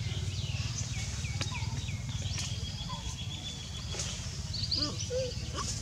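Short, high-pitched animal chirps and calls, many of them falling in pitch, over a steady low rumble.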